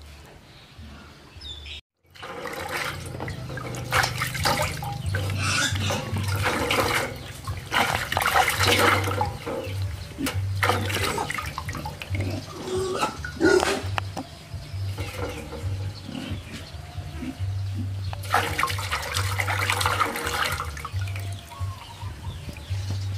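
Water splashing and sloshing in a basin as a baby monkey is washed by hand, starting about two seconds in, with many short splashes throughout.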